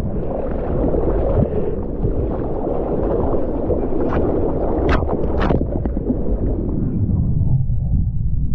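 Ocean water sloshing and splashing right at a surfer's GoPro as he paddles into a wave, with a few sharp splashes about five seconds in. Near the end it turns to a duller low rumble as the wave rises over him.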